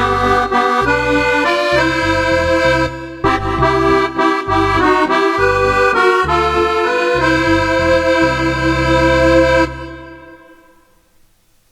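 Roland FR-4x digital V-Accordion playing a short passage on an accordion voice: chords in the right hand over bass notes that change about twice a second, ending on a held chord that stops just before the end and fades out in a reverb tail.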